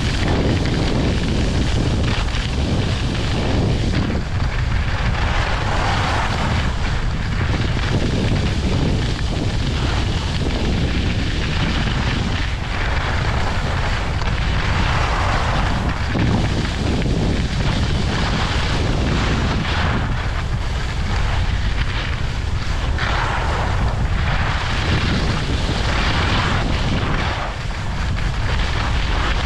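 Heavy wind rumble on the microphone of a skier moving downhill, with the hiss of skis sliding and scraping on packed snow, swelling and fading every few seconds through the turns.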